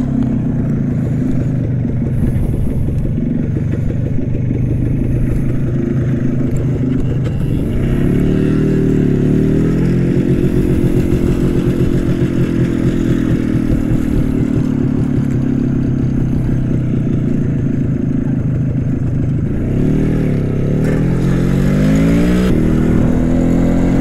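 CZ 175 motorcycle's single-cylinder two-stroke engine pulling away and accelerating through the gears. Its pitch climbs about eight seconds in, holds steady, then dips at a gear change around twenty seconds in and climbs again.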